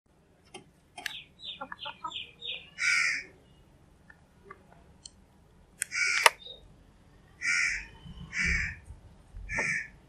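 House crows cawing: five harsh caws, one about three seconds in and four more spread over the last four seconds. Before the first caw comes a quick run of five short, high notes.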